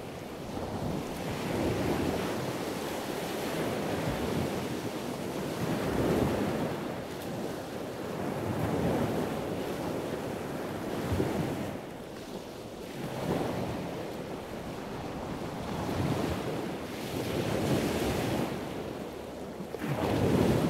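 Sea waves washing in and out, a rushing noise that swells and fades every two to four seconds.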